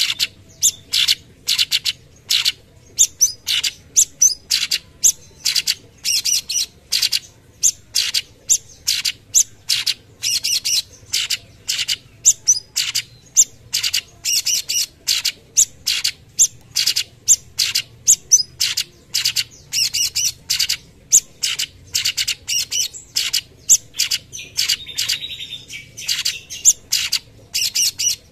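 Cucak cungkok, a leafbird, singing its 'tembakan': a fast string of short, sharp, high notes, two or three a second, with a brief warbled phrase near the end.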